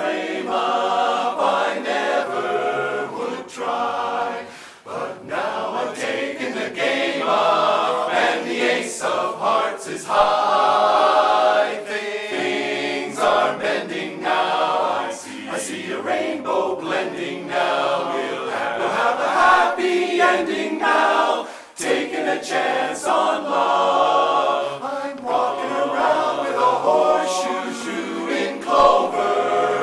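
Men's barbershop chorus singing a cappella in close harmony, with short breaks between phrases about five seconds in and again about two-thirds of the way through.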